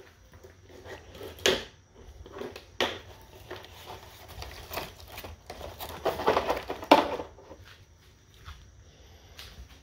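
Plastic caliper case handled and opened and a digital caliper lifted out: several scattered clicks and knocks of plastic and metal, the sharpest about seven seconds in.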